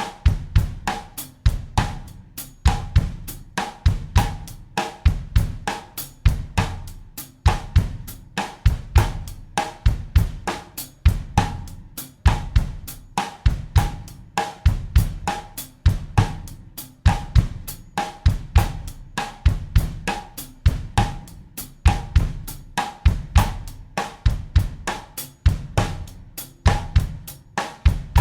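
Acoustic drum kit playing a steady bossa nova groove in 4/4 at 100 beats per minute: a rhythm of quick cymbal or hi-hat strokes over a repeating bass-drum pattern, with a ringing drum or rim note recurring each bar.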